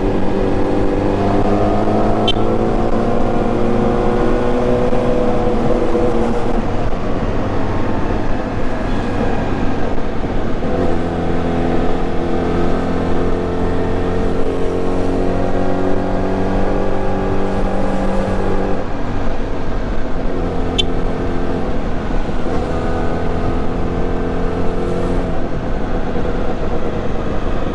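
Yamaha YZF-R6's 600 cc inline-four engine running under the rider at road speed, its note drifting down and back up a few times as the throttle is rolled off and on.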